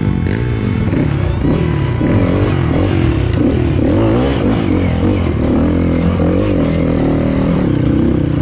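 Dirt bike engine climbing a rocky trail, its revs rising and falling over and over as the throttle is worked, with scattered knocks and clatter from the bike bouncing over stones.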